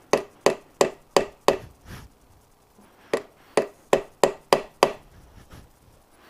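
Hammer tapping sharply on a part in two runs of about six blows each, roughly three a second, with a short pause between the runs; each blow rings briefly.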